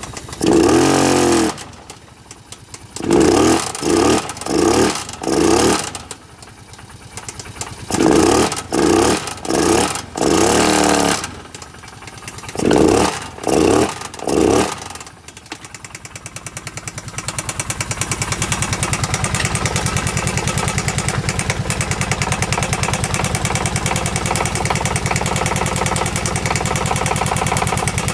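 Kawasaki KVF750 Brute Force ATV's V-twin engine blipped in a run of short revs, then settling to a steady idle about halfway through with a regular loud knocking. The owner places the knock at the rear cylinder and has ruled out the valve tappets.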